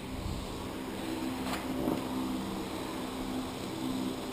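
A steady low mechanical hum, like a fan or motor, with a single light click about a second and a half in.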